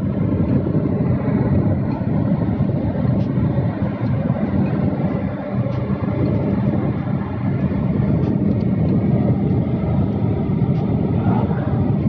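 A steady low machinery drone with wind noise on the microphone, and a few faint clicks now and then.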